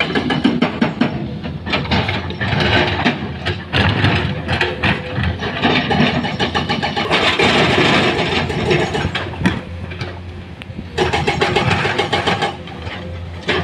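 Heavy construction machinery engine running, with a steady low hum and many clanks and knocks throughout; it eases off briefly about ten seconds in, then picks up again.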